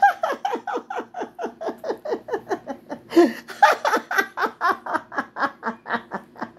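A woman laughing in a long, even run of quick pulses, about five a second, each dropping in pitch.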